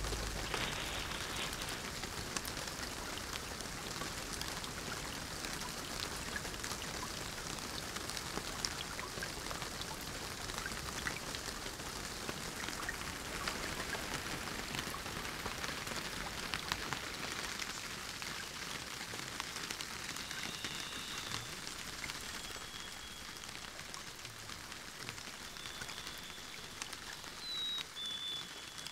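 Rain in a forest: a steady patter with many small drops ticking on leaves and branches. A bird gives a few short, high, thin calls late on.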